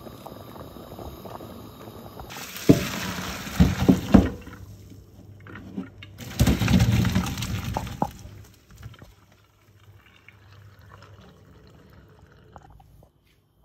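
Pot of potatoes at a rolling boil, then the hot water drained off through a plastic colander into a steel sink in two rushing pours, with a few knocks of the pot during the first. The pouring stops about eight seconds in.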